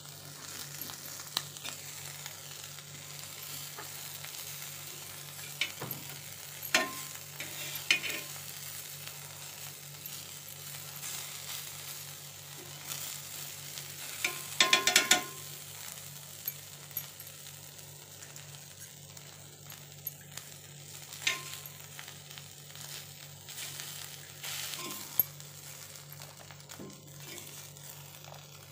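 Small whole fish frying in oil on a flat iron tawa with a steady sizzle, while a spatula scrapes and turns them, striking the pan now and then. A short burst of clatter comes about halfway.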